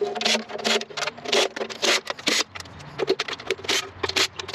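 Cordless impact driver backing out oil pan bolts on a small-block Ford, with a quick, irregular run of sharp metallic clicks and clinks as the bolts come loose and are handled.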